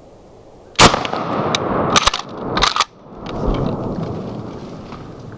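A single shotgun blast from a rifled slug, about a second in, followed by a long rumbling echo that swells again and slowly fades. Several sharp clicks and knocks come within the next two seconds.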